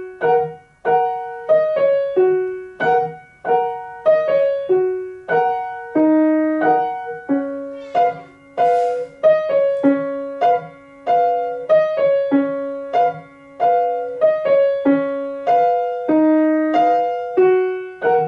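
Grand piano played slowly and gently: a simple tune of struck notes and chords, about one every two-thirds of a second, each left to ring and fade.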